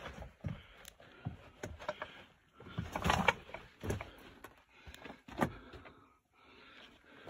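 Irregular scrapes, crunches and sharp knocks of someone moving over loose rock and rubble, with the camera being handled; the busiest stretch comes about three seconds in.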